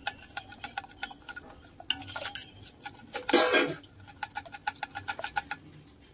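Steel spoon stirring curd being thinned with water in a stainless steel bowl, a quick run of light clinks against the bowl with one louder, longer stroke about three and a half seconds in.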